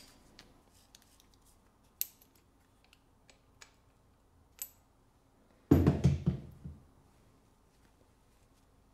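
Small sharp metallic clicks from a digital caliper being slid and closed on an angle grinder's spindle and handled, a few seconds apart. A louder clattering handling noise lasting about a second comes around six seconds in.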